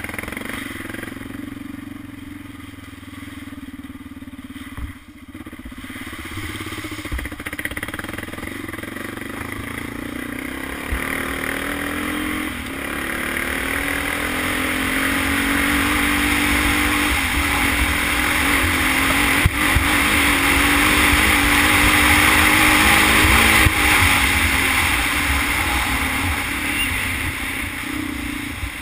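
Honda 400EX quad's single-cylinder four-stroke engine under way on a dirt trail, its pitch climbing in steps through the gears and growing louder to a peak about three-quarters through, then easing off near the end. A couple of sharp knocks from the machine going over bumps.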